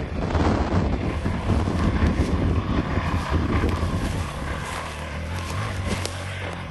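A dirt bike's engine running steadily as it rides across the hillside, with wind noise on the microphone.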